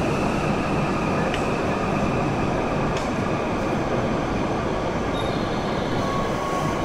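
Hokuriku Shinkansen E7/W7-series train running past along the platform: a steady rumble and rush of wheels and running gear, with a few faint clicks.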